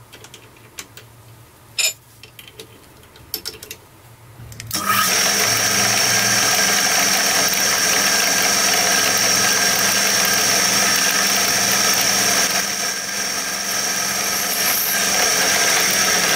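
A few clicks and knocks as a drill bit is fitted into a drill press chuck. About five seconds in the drill press motor starts and runs steadily, drilling a hole through a piece of abrasive angle-grinder cutting disc clamped in a vise.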